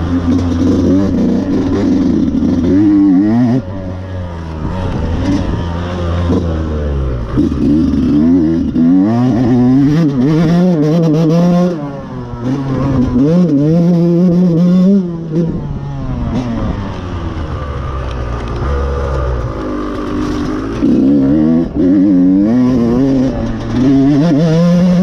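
Dirt bike engine revving hard under load on a steep climb, its pitch rising and falling again and again as the throttle opens and shuts, with a few short lulls. The engine is worn and due for a new top end.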